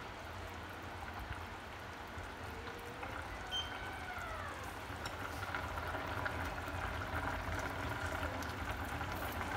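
Pot of braising chicken and mushrooms simmering on the stove, the liquid bubbling and crackling, getting livelier in the second half, over a steady low hum. A faint falling whistle-like tone passes around the middle.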